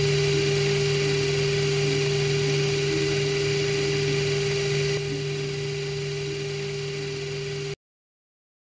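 Small DC geared motor driving an oil pump, running steadily with a whine as it circulates oil through hoses and back into a can. The level dips slightly about five seconds in, and the sound cuts off suddenly near the end.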